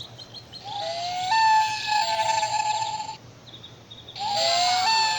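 Recorded common loon wail played from the small sound box of an Audubon plush loon, heard twice. Each call is a note that rises and then holds steady for about two seconds, with a faint hiss from the little speaker.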